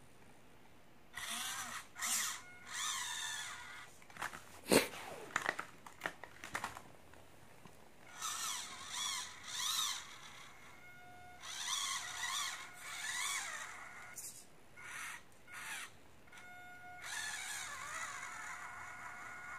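Small electric motor and gearbox of a mini RC crawler whining in short throttle bursts, the pitch wavering up and down as it strains, with a steady high tone under some bursts. A few sharp clicks and knocks of the car's plastic chassis about five seconds in.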